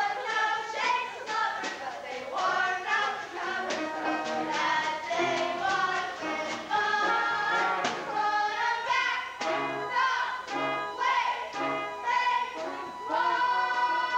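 A chorus of young voices singing together with instrumental accompaniment, ending on a long held note near the end.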